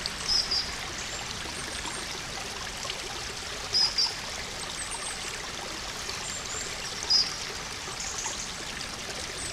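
Shallow woodland stream running steadily over stones. Short high chirps stand out above the water: a pair near the start, another pair about four seconds in, and a single one about seven seconds in.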